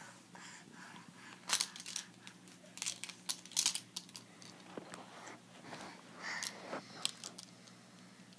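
Faint, scattered crinkling and clicking rustles, several small ticks spread over a few seconds over a low steady hum.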